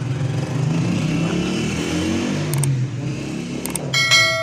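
A vehicle engine running, its pitch rising and falling. About four seconds in, a bell-like chime rings out and holds.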